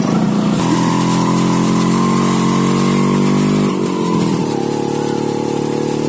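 Motorcycle engine running steadily under way. Its pitch shifts slightly lower a little over halfway through.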